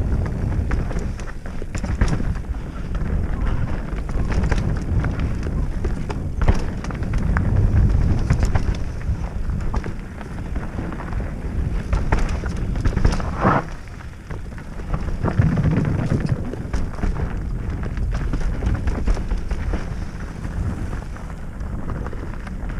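A mountain bike being ridden down a dirt forest singletrack: the tyres rumble over dirt and roots and the bike rattles and knocks over bumps, with heavy wind buffeting the camera microphone. A short higher squeal comes about halfway through.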